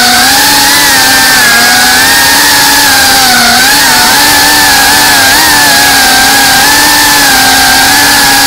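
GEPRC cinewhoop FPV drone's brushless motors and ducted propellers whining in flight, picked up loud and close by the camera mounted on the drone. The pitch wavers up and down together as the throttle changes, with a short dip about three and a half seconds in.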